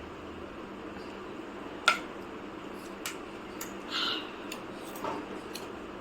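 A sharp click about two seconds in, then a few softer clicks and a short scrape, over a steady low hum.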